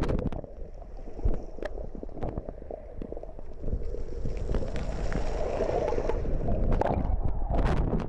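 Muffled underwater sound picked up by a camera held under the sea: low rumbling water movement with faint clicks. Near the end there is splashing as the camera comes back up through the surface.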